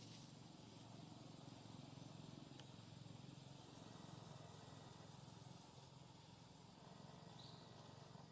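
Near silence: a faint, steady low background hum with no distinct sounds.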